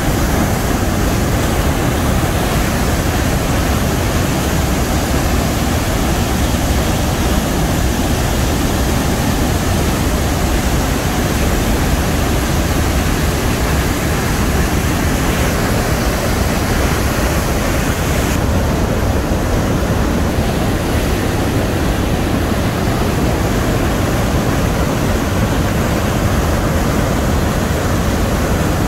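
Athabasca Falls: the Athabasca River pouring over the rock lip into the gorge, a loud, steady rush of falling water that is heavy in the low end.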